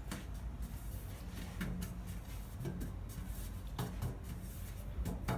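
Scattered light knocks and rubbing from hands handling dough and kitchen utensils at a counter, over a low steady hum.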